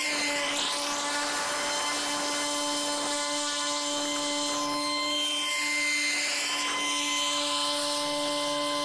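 Helicopter flying low overhead with a load cable hanging beneath it, giving a steady turbine whine over the rotor noise, with no break or change.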